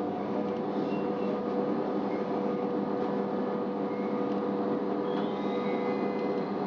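Cab interior of a Stadler GTW 2/6 diesel-electric railcar under way: a steady hum of the drive with wheel-on-rail rolling noise. From about five seconds in, a faint high squeal joins as the railcar runs into a station.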